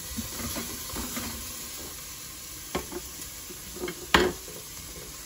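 Chopped onions sizzling in a stainless steel pot while a spoon stirs them, scraping and knocking against the pot. About four seconds in, a sharp clatter, the loudest sound, as the spoon is set down on the stainless steel counter.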